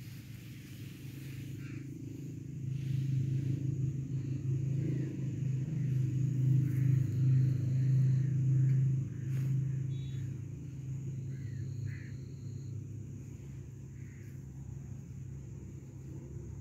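Low rumble of a vehicle engine, growing louder over a few seconds and easing off after about ten seconds.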